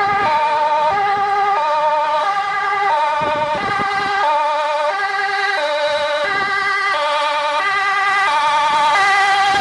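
A Dutch fire engine's two-tone siren sounding as the truck approaches, stepping back and forth between a high and a low note about every two-thirds of a second. It grows a little louder near the end as the truck draws near.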